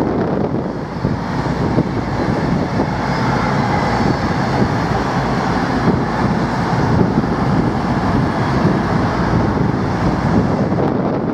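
Two coupled Class 221 Super Voyager diesel-electric trains running past, a steady loud rumble of underfloor diesel engines and wheels on rail.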